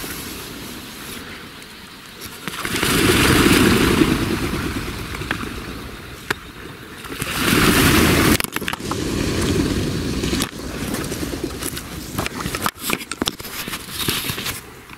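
Whooshing wings of a huge flock of ducks passing low overhead, swelling loud twice, then sharp clicks and rustling as the camera is handled.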